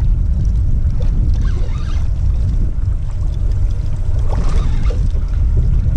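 Wind buffeting the microphone on a small boat at sea, a heavy steady low rumble, with a couple of light splashes of water against the hull.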